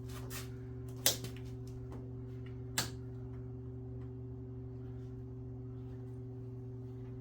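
A few sharp clicks and taps of a plastic door weather strip being worked and pressed into place on the window ledge, the loudest about a second in, over a steady low hum.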